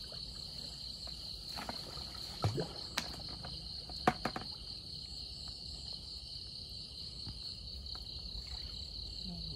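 Night insects chirring in a steady, high-pitched drone, with a few brief knocks and splashes about two to four seconds in as a net fish trap is lifted from the water.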